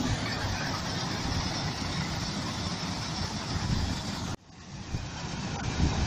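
HIND self-propelled combine harvester running in the field, a steady mechanical engine-and-machinery noise with a deep rumble. The sound drops out abruptly about four and a half seconds in, then swells back to the same steady noise.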